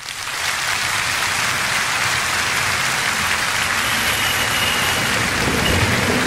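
A steady, even hiss like falling rain, fading in over the first half second, with low sound building slightly near the end.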